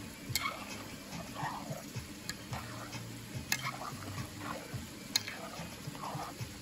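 Spoon stirring a pot of boiling pumpkin soup, clinking against the metal pot about four times over the bubbling of the boil.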